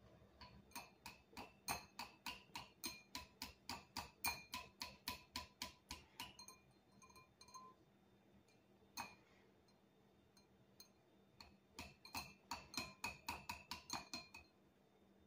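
Wire whisk beating eggs in a small glass bowl, the wires clinking against the glass about three or four times a second. The clinking stops for several seconds midway, then starts again near the end.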